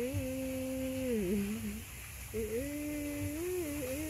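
A woman humming a slow tune: long held notes that dip and rise, in two phrases with a short break about two seconds in.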